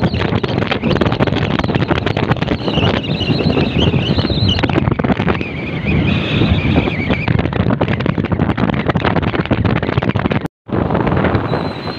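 Wind buffeting the microphone over engine and road noise from a motorcycle moving at speed along a highway. The sound cuts out for a moment near the end.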